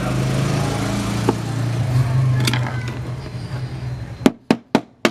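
A small motor running steadily with a hiss of noise on top, dying away and stopping about four seconds in. A quick series of sharp clicks follows, about four a second.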